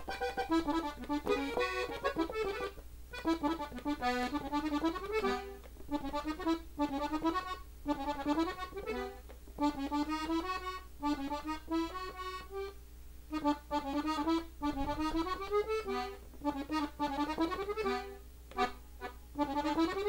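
Gabbanelli diatonic button accordion tuned in E, playing a melodic ornament on its treble buttons at a slowed tutorial tempo. It goes as quick runs of single notes, many rising, in several short phrases separated by brief breaks.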